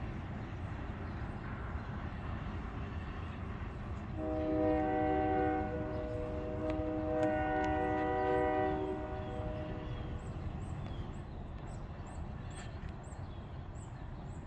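Diesel freight locomotive's multi-chime air horn sounding two blasts of about two seconds each from a distance, a chord of several notes, over the steady low rumble of the train. Faint high chirps follow near the end.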